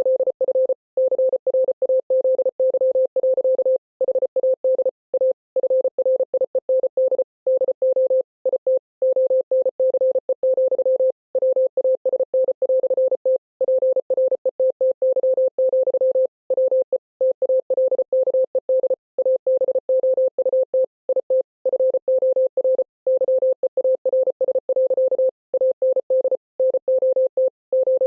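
Morse code sent as a single steady mid-pitched beep, keyed rapidly on and off in dots and dashes, with short gaps between letters and longer gaps between words. The code spells out the text of the Mr. Hippo speech.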